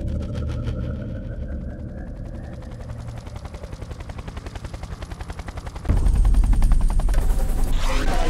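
Combat sound effect: rapid, even chopping of about ten beats a second, with a faint rising whine near the start. About six seconds in it jumps suddenly to a much louder, deeper pounding.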